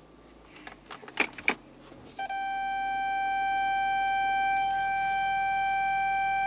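A few light clicks and knocks, then, about two seconds in, a single long steady note with overtones, like a held flute or organ tone, comes in loud and holds unchanged: background music laid over the footage.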